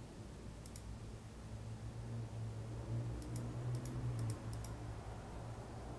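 Computer mouse clicking: a couple of clicks under a second in, then a quicker run of about six clicks between about three and four and a half seconds, over a faint low hum.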